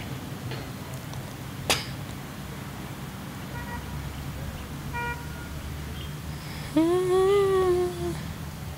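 A steady low hum, a single click about two seconds in, then one long pitched vocal note about seven seconds in that rises slightly and is held for over a second.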